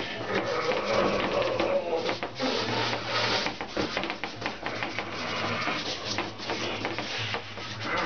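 Charcoal scratching across large drawing paper on an easel, mixed with the hand rubbing and smudging the paper, in quick irregular strokes.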